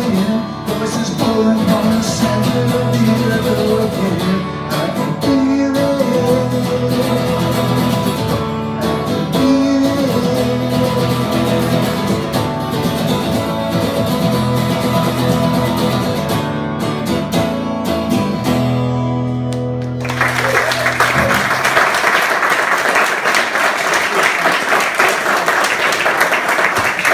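Guitar music playing the end of a song, its final chord held and fading, followed about twenty seconds in by applause that continues to the end.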